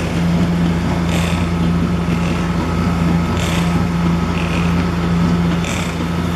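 Concrete pump's diesel engine running steadily, with a short hissing surge about every two and a half seconds as the pump strokes, pushing concrete down the hose.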